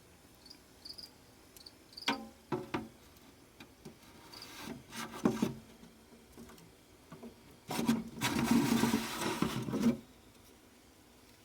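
Scattered knocks and short rubbing noises, then a louder stretch of scraping and rustling lasting about two seconds near the end.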